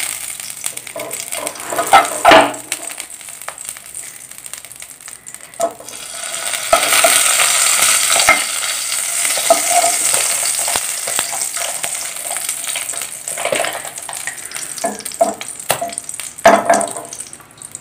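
Ghee sizzling as it melts in a hot nonstick kadai, spread with a wooden spatula that scrapes and knocks on the pan a few times. The sizzle swells about six seconds in and stays strong for several seconds.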